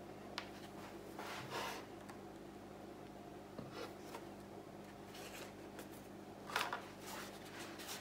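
Quiet room with a steady low hum and a few brief soft rustles or scrapes, the clearest about six and a half seconds in.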